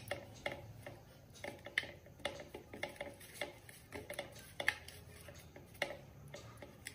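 Faint, irregular light clicks and taps, about one or two a second, as a hand rubs salt and turmeric onto small raw fish on a plate: the wrist's bangles and the fish knocking lightly against the plate.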